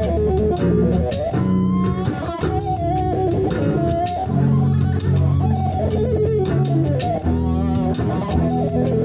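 Extended-range electric guitar playing a bluesy lead line with string bends over held low notes.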